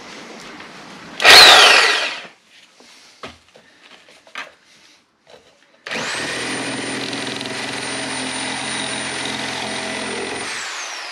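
Corded reciprocating saw given a short, very loud burst about a second in that winds down with a falling whine. After a few small clicks it starts again and runs steadily for about four and a half seconds, cutting down into the floor, then winds down near the end.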